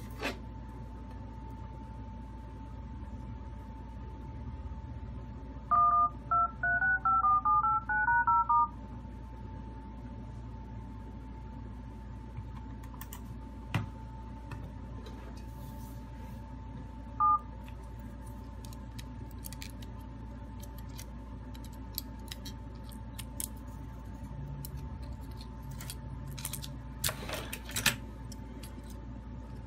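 Dialer keypad tones from a Huawei Mate 20 smartphone as digits are typed on its on-screen keypad: a fast run of about a dozen short two-tone beeps, then one more beep several seconds later. A few light clicks of handling follow near the end.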